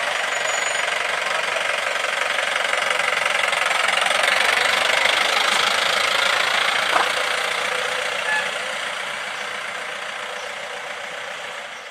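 Police jeep's engine running steadily close by, fading over the last few seconds.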